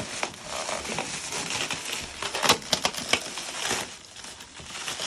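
Cardboard box and packing material being torn and handled, giving irregular crinkling and crunching with a few sharper cracks, the sharpest about two and a half seconds in.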